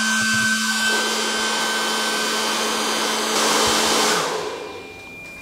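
Two hair dryers blowing steadily. A little over four seconds in they wind down and fade out, as the Bluetti AC500 power station running them from a B300 battery trips on a low battery power alarm under the roughly 4300 W load. A faint high steady tone is left near the end.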